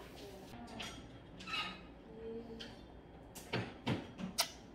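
Quiet table-eating sounds: scattered light clicks and taps of plastic training chopsticks against a ceramic bowl, with a quicker run of taps near the end. A brief faint tone sounds about two seconds in.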